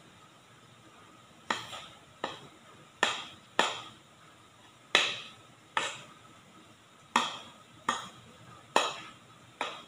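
Metal spoon knocking against a stainless steel mixing bowl as cake batter is scraped out of it: about ten sharp taps with a short ring, starting about a second and a half in and coming roughly one every second.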